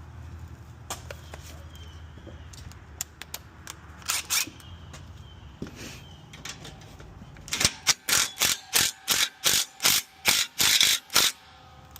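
Scattered clicks and taps of parts being handled, then a hand ratchet cranked in a quick run of about ten rasping strokes, roughly three a second, as a fastener is run down tight.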